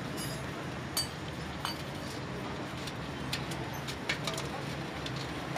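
Light, scattered clinks and scrapes as a motorcycle part is scrubbed with a brush in a metal pan of dirty fluid, over a steady low background hum.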